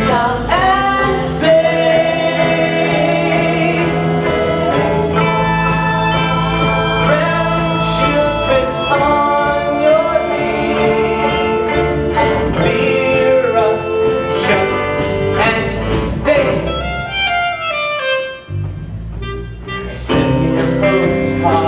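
A live band and singers performing a song on stage. The music briefly thins out about three seconds before the end, then comes back in full.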